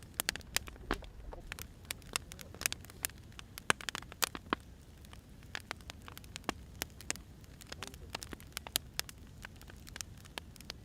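Wood fire crackling: irregular sharp pops and snaps from burning firewood logs over a low, steady hiss and rumble of the flames.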